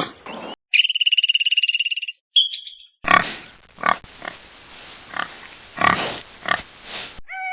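Kangaroo sounds: first a rapid, high-pitched buzzing trill lasting about a second and a half, then a series of irregular rough huffs and grunts for about four seconds.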